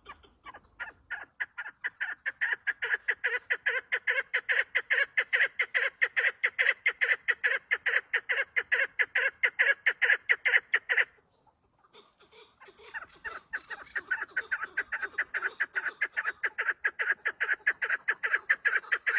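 Female chukar partridge calling: a rapid run of repeated notes, about six a second. It breaks off for a second or so just past the middle, then starts again.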